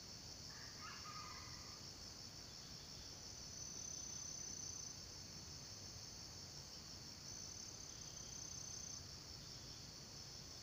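Steady shrill insect chorus, with a second insect's higher steady note joining twice for a second or so. Near the start, a short crow of a junglefowl rooster.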